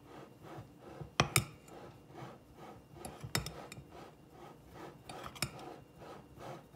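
Metal spoon stirring salt into flour in a glass bowl: soft scraping through the flour about twice a second, with sharp clinks of the spoon against the glass, the loudest a little after one second, about three seconds in and past five seconds.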